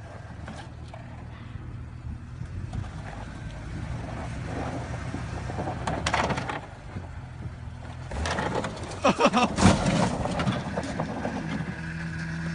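A motor vehicle's engine running with a steady low rumble, broken by a louder jumble of sharp knocks and noise from about eight to ten seconds in.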